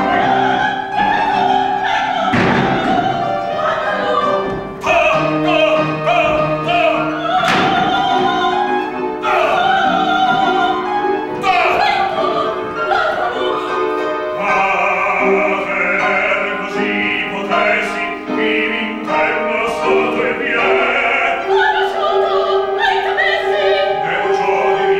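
Operatic singing with piano accompaniment.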